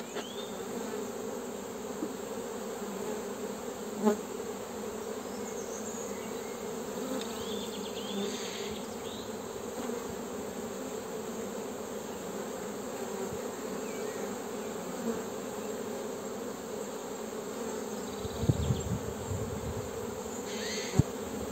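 Honeybee colony humming steadily from an opened hive, with a single knock about four seconds in and some handling noise near the end.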